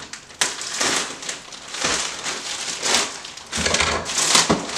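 Thin plastic mailer bag crinkling and rustling in irregular bursts as it is cut open with scissors and pulled apart by hand.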